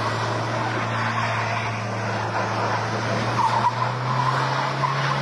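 Car engine running with a steady note while tyres skid and squeal under stunt driving.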